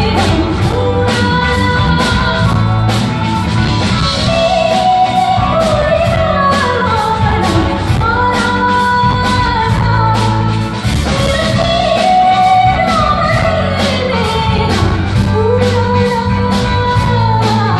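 Live pop band playing amplified on stage: a woman sings a flowing melody over electric guitar, keyboard and a steady drum beat.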